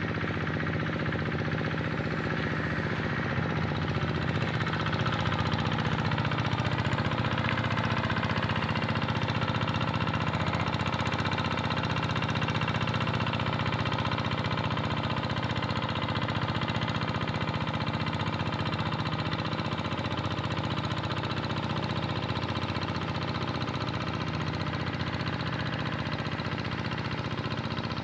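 Tractor engine running steadily as it plows a rice paddy, with an even knocking beat.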